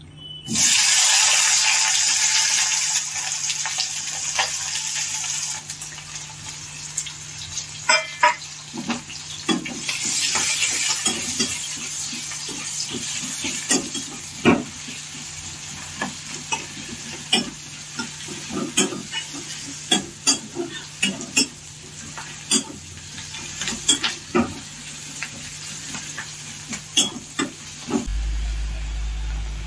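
Sliced onions dropped into hot oil in a kadai, sizzling loudly at once about half a second in. Then a spatula stirs them, with many sharp clicks and scrapes against the pan over a continuing, quieter sizzle.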